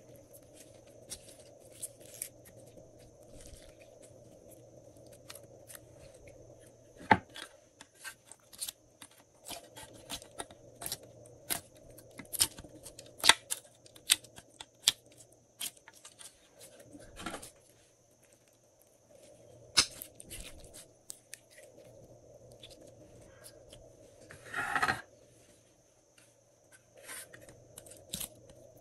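Glossy slime being stretched, squished and pulled out of clear plastic molds by hand: an irregular run of sticky clicks and pops, a few of them sharp and loud, with a short crackling burst near the end, over a faint steady hum.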